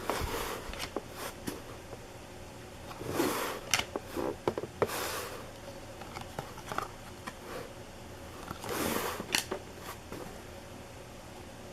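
Trading cards and foil pack wrappers being handled: several short rustling swishes with scattered small clicks and ticks.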